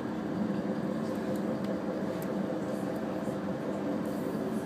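Steady background ambience of an indoor animal house: an even low hum with faint, indistinct voices in the background.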